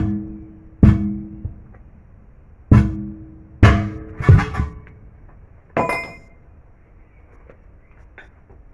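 Six hard strikes on metal, each ringing out with a clear tone that fades over about a second; the last one, near the end, is brighter. Typical of a steel truck wheel rim being hit while a new truck tyre is fitted.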